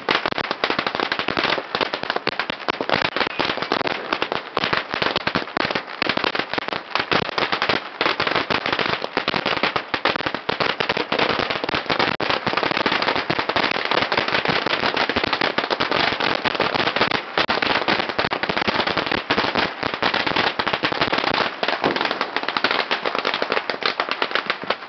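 A long string of firecrackers going off in a rapid, unbroken rattle of loud bangs that stops abruptly near the end.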